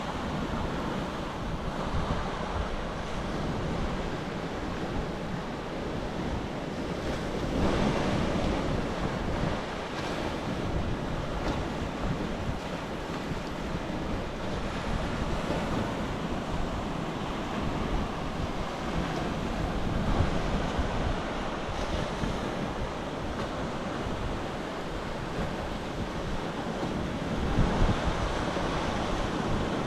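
Sea surf washing on the shore, with wind buffeting the microphone. The wash swells louder about eight seconds in and again near the end.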